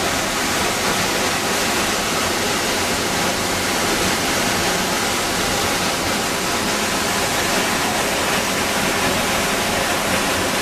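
Ponytail Falls in spring flow, its water plunging into the pool below: a steady, loud rush of falling water with no letup.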